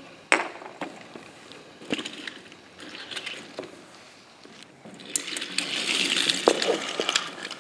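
Small toy-train pieces clicking and knocking as they are handled, then a few seconds of scraping and rustling near the end.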